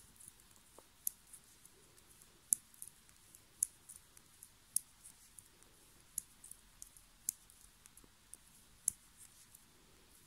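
Metal circular knitting needles (size 3) clicking against each other as stitches are knitted. Light, sharp clicks come at an uneven pace, one or two a second, a few much louder than the rest.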